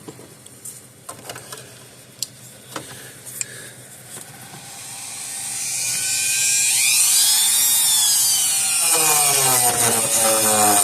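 A few light clicks and taps, then about five seconds in a small high-speed electric tool motor spins up with a loud, high whine that rises, sags and settles, with lower tones joining near the end.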